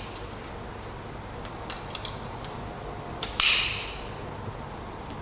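Handling noise from an aluminium TV antenna frame being lifted: a few light clicks, then one short, loud metallic clatter about three and a half seconds in that fades quickly.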